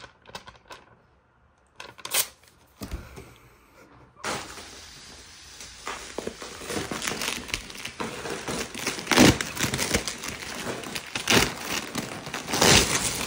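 Crinkling and rustling of packaging handled by hand: scattered rustles at first, turning continuous about four seconds in, with several louder crackles.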